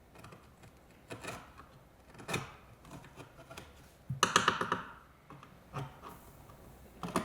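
Small objects and tools being handled on a work surface: scattered light knocks and clicks, with a quick rattling run of clicks about four seconds in.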